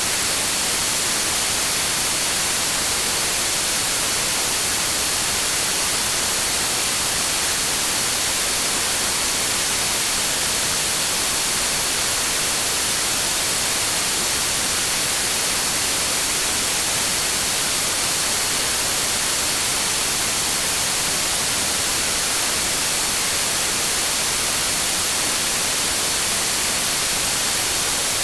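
Synthetic noise track labelled green noise: a steady, even hiss weighted toward the high end, with a faint thin high tone in it.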